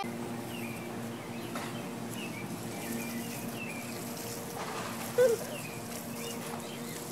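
Backyard ambience with small birds chirping and a steady low hum, broken about five seconds in by one short, loud voice-like call that rises and falls.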